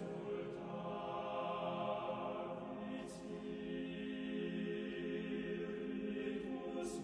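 Slow background music of long, held notes, with soft airy swells about three seconds in and again near the end.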